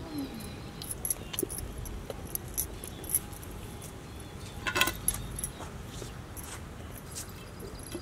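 Scattered light clicks and clinks, one louder about five seconds in, as potatoes are handled and put into a clay pot of water over a wood fire.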